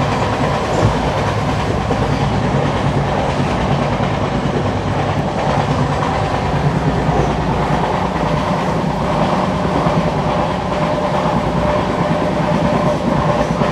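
A moving train running steadily, a continuous, even noise with no pauses.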